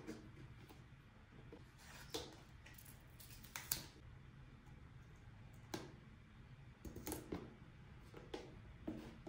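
Light clicks and taps of small toy kitchen play set pieces being handled and set down, scattered irregularly a second or more apart over a faint low hum.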